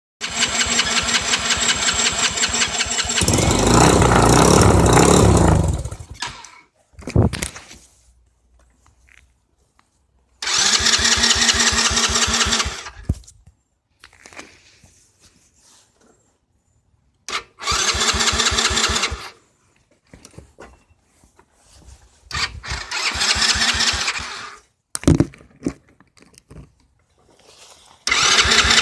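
Four-wheeler engine cranked repeatedly on its starter. It catches about three seconds in, runs unevenly for a few seconds and dies. Three more short cranking attempts fail to start it, and another begins near the end. This is an ATV that bogs and shuts off.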